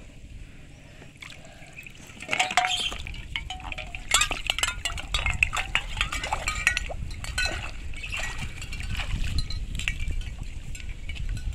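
Water splashing as someone wades through a shallow pond, with bottle fishing traps knocking and clinking together as they are dragged and carried. Sharp clinks come thick and fast from about two seconds in.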